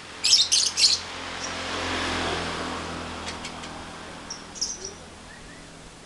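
Lovebird calling: three loud, shrill chirps in quick succession at the start, then another short burst of chirps near the end.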